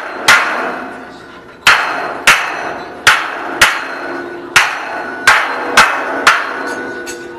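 Hammer blows on the steel fittings of a lift guide rail, about ten sharp strikes, mostly in quick pairs. Each strike leaves a short metallic ring.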